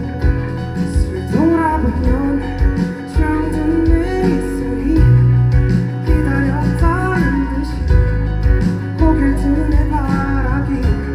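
Live pop band music from a concert stage: a steady bass and drum beat under a gliding, bending melody line.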